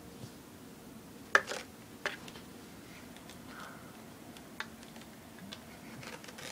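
A few short, sharp clicks and taps, the loudest about a second and a half in, as a kitten bats at a pom-pom toy on a spring atop a carpeted scratching post.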